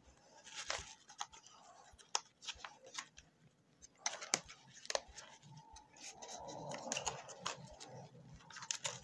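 Pokémon trading cards and a clear plastic card sleeve being handled: scattered soft scratches and clicks of plastic and card as a card is slid into the sleeve.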